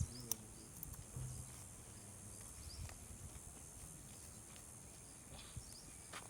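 Faint, scattered clicks and rustles of a parrot's beak working at a peach on the tree, over a steady high hiss.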